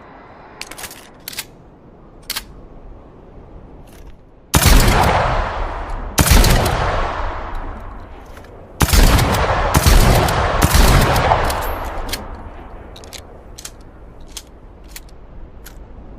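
Short-barrelled shotgun fired about four times a couple of seconds apart, each blast with a long reverberating tail. Small sharp clicks come before the shots and again near the end.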